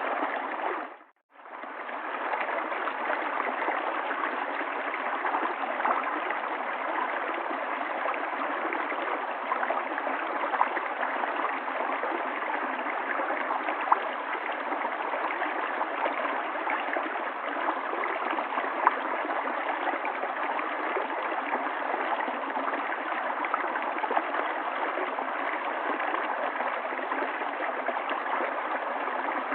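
River water flowing steadily, a constant babbling rush. It drops out to near silence for a moment about a second in, then fades straight back.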